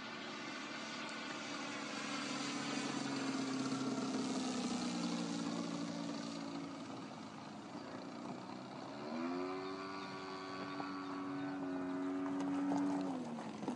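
Single-cylinder two-stroke petrol engine (DLE55) of a Sebart Su-29 radio-controlled aerobatic plane in flight, a steady drone heard from the ground. About nine seconds in its pitch rises sharply and holds, then drops away just before the end.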